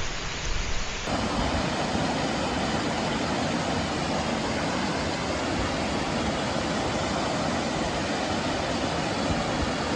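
Waterfall: a steady, even rush of falling water. About a second in, a rougher stretch with low rumble gives way to it.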